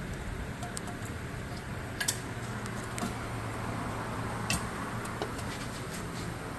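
A few sharp light clicks and knocks of parts and tools being handled, the loudest about two seconds in, over a steady low hum.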